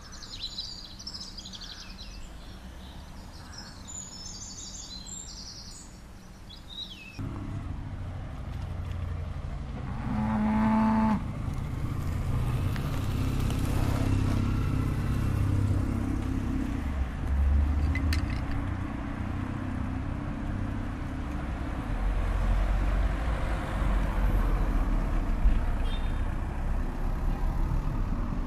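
Birds chirping over quiet outdoor ambience, then from about seven seconds in a steady low rumble of passing road traffic. A short pitched tone sounds about ten seconds in.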